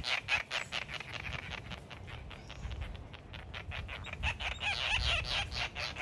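White terns (fairy terns) chattering: a rapid run of short repeated calls, about seven a second, loudest at the start and again about five seconds in.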